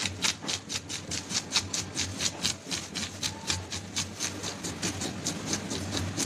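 Hand-held fish scaler scraping the scales off a black snapper on a wooden chopping block, in quick even strokes about three to four a second, over a low steady hum.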